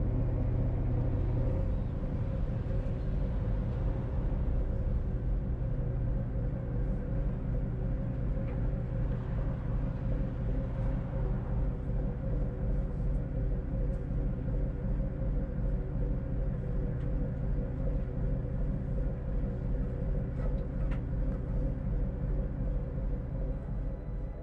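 The old steel ship's inboard engine running in gear with a steady low throb, working against the aft line to swing the bow back. Its note shifts a little about two seconds in.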